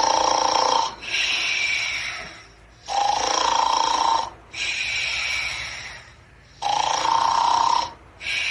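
Snoring in a slow, even rhythm, three times: each snore is a loud pitched in-breath about a second long, followed by a longer hissing out-breath that fades away.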